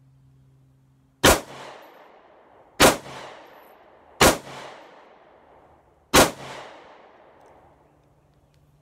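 Four shots from a Sig P365 compact pistol, roughly a second and a half to two seconds apart, each ringing out briefly. The last shot ends in a stovepipe jam: the spent case is caught in the ejection port instead of being thrown clear.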